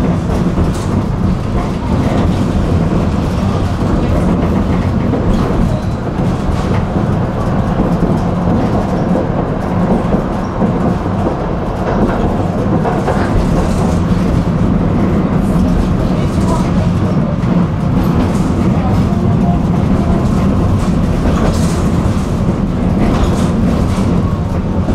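Tram running along the track: a steady rumble of wheels on rails and the running gear, with a few brief clicks scattered through it.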